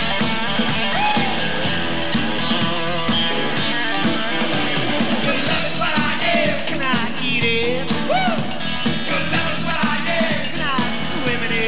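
Live rock band playing, with electric guitar and drums, and a male lead vocal singing over it; the voice slides between notes, most clearly in the second half.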